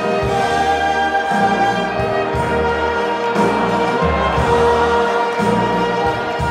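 Live wind band music with a violinist playing along: held band chords over a low bass line that moves to a new note about once a second.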